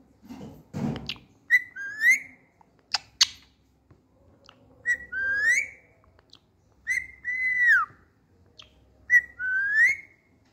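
Pet ringneck parakeet whistling four times, each call a short note followed by a rising whistled glide; the third glide bends down at its end. A few soft clicks and a rustle come between the calls.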